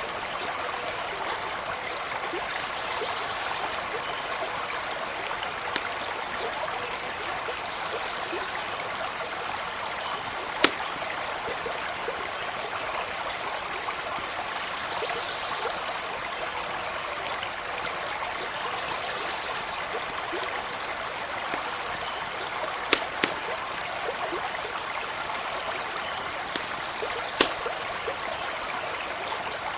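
A stream running and babbling steadily, with a few sharp pops of a crackling campfire over it.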